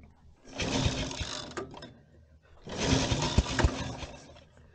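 Two bursts of mechanical clattering, each about a second and a half long, the second with a few heavy knocks.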